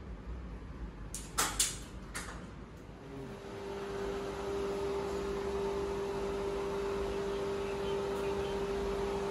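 A few sharp knocks a little over a second in, then about three seconds in a small electric motor starts and runs with a steady hum: the portable pressure-washer pump used to spray-clean a split air conditioner during servicing.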